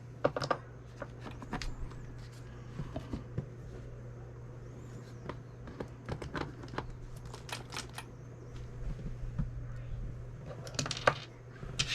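Scattered clicks and taps of hands working on a 1/7-scale RC truck, handling its plastic and metal parts, with a small cluster of sharper clicks near the end, over a steady low hum.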